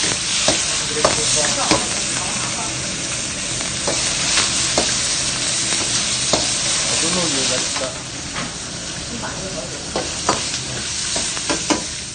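Diced onion, peppers and pineapple sizzling in a hot wok, stirred with a metal wok ladle that clinks and scrapes against the pan now and then. The sizzle eases a little about eight seconds in.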